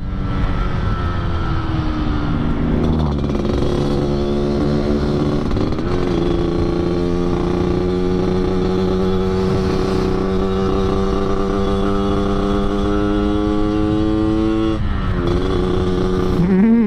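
Yamaha RX-King 135cc two-stroke single-cylinder engine, with an under-slung expansion-chamber exhaust (knalpot kolong) tuned for the Medan-style 'ngorok' growl, under way. Its pitch falls over the first few seconds and steps at gear changes about three and six seconds in. It then holds a steady, slowly rising note, drops near the end and gives one short rev that rises and falls.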